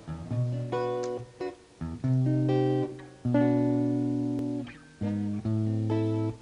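Slow instrumental intro of a soul song: guitar chords over a deep bass note, a new chord struck about once a second and left to ring.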